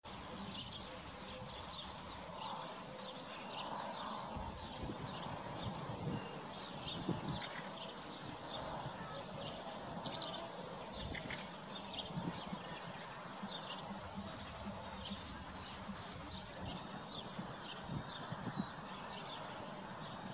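Horses grazing: grass being cropped and chewed, with soft hoof steps now and then. Frequent small high chirps run throughout, and there is one sharper click about halfway through.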